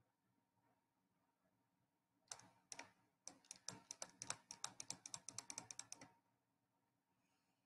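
Typing on a computer keyboard: two keystrokes about two seconds in, then a quick, uneven run of keystrokes for about three seconds that stops suddenly.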